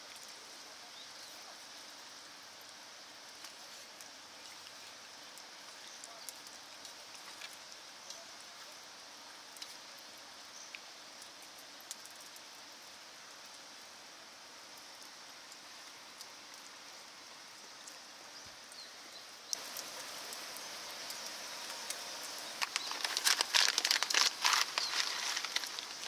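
Foil coffee bag crinkling loudly in the hand in the last few seconds, in irregular rustling bursts. Before that, a steady faint outdoor hiss with a few small ticks.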